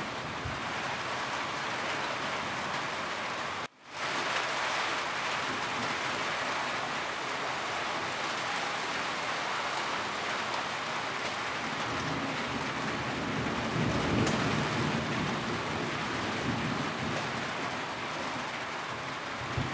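Steady rain falling on a roof. About four seconds in, the sound cuts out for a split second and comes straight back. Later a low rumble swells and fades under the rain.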